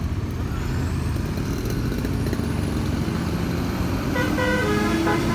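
Low rumble of a running vehicle. About four seconds in, a basuri 'keong' telolet multi-tone air horn starts playing a tune of steady notes that change pitch in steps.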